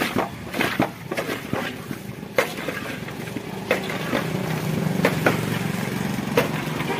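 Metal spatula scraping and knocking irregularly against a large steel karahi while turning a sticky mass of puffed rice in syrup. A steady engine hum comes up underneath about halfway through.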